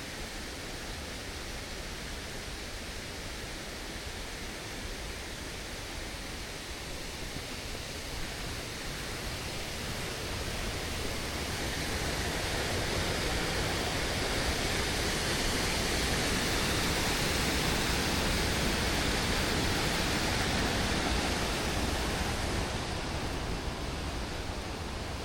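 Steady rush of water from a swollen stream or waterfall. It grows louder and brighter partway through, then eases off slightly near the end.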